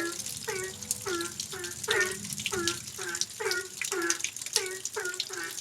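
Rain falling, with a quick, regular series of short pitched notes, about two or three a second, each sliding down in pitch.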